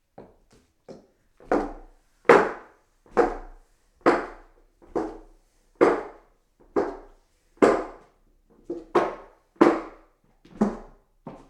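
Footsteps climbing hollow wooden stairs: a steady, unhurried tread, one resonant wooden knock about every second, some steps landing as a quick double knock.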